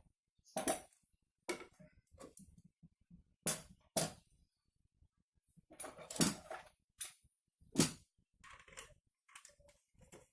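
Small metal parts and hand tools clinking and clattering in irregular knocks, about a dozen over the stretch, as a scooter's CVT is taken apart and handled.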